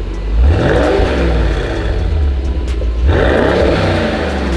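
Mercedes-AMG GT 63 S 4-Door's twin-turbo V8 in Comfort mode, revved twice while parked: two quick revs, each rising and falling back to a steady idle, about three seconds apart.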